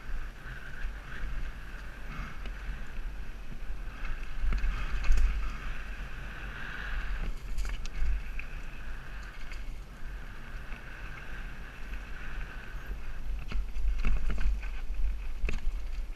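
Mountain bike coming down dirt single track at speed. Wind buffets the camera microphone over a steady rush of tyres rolling on dirt, with scattered clicks and knocks from the bike rattling over rough ground, most of them in the second half.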